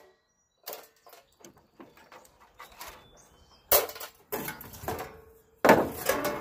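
A light sheet-steel bracket on an AC condensing unit being worked loose and pulled off by hand: a few faint clicks, then, from just past halfway, a run of sharp metal clanks and scrapes, the loudest near the end.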